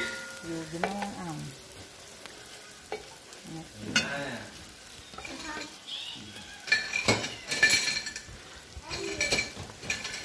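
A metal enamel cup pressed and rubbed over a roti on a hot cast-iron tawa, scraping in several strokes, the loudest about seven to eight seconds in. The dough is being pressed so that it swells.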